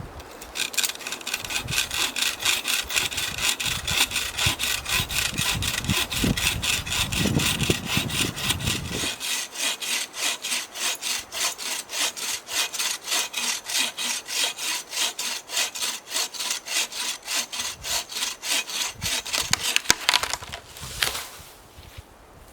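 Hand saw cutting through wood, likely firewood for the campfire, in quick even strokes, about four a second. The sawing stops shortly before the end.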